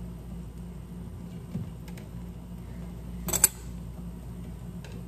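Knife prying at the tightly sealed lid of a plastic food container: a few small clicks, then a sharp clatter of knife on plastic about three and a half seconds in, over a steady low hum.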